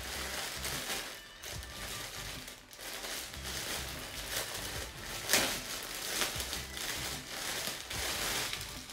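Clear plastic garment bag crinkling and rustling in irregular bursts as it is handled and opened, with one sharper, louder crackle about five seconds in.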